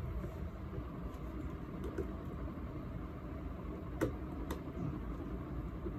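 Steady low background rumble, with two light clicks about four seconds in, half a second apart, as the metal post box is handled. The buzzer is not sounding.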